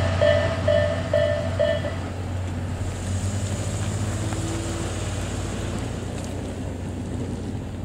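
Japanese railway level-crossing alarm bell ringing in a steady repeating ding, about two a second, which stops about two seconds in as the crossing clears. A small SUV's engine runs low and steady under it, then the car pulls away across the tracks.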